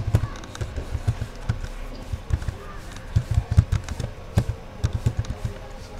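Computer keyboard keys being typed in quick irregular runs of dull clicks and thumps, several a second, with short pauses between runs.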